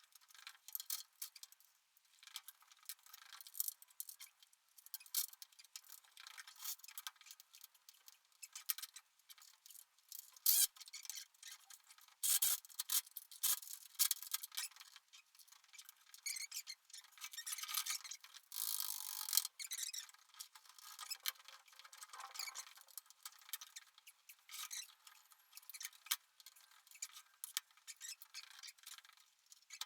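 Hand tools working on the ATV during engine removal: a busy run of irregular clicks, squeaks and scrapes, with a few heavier knocks around the middle.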